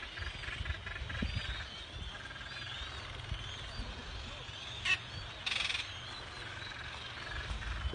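A seabird colony with many birds calling over and over in short chirping cries. Wind rumbles on the microphone, and there is a brief knock about five seconds in.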